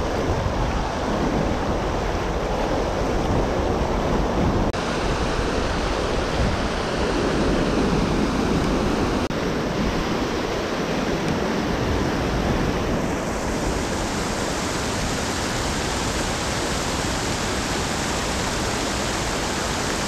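Creek water rushing over a rock ledge close by: a steady, loud rush of whitewater.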